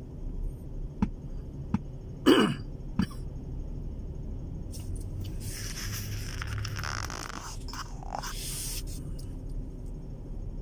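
A single short cough about two seconds in, over the steady low hum of a car cabin waiting at a light. Then a longer rush of passing traffic swells and fades from about five to nine seconds in.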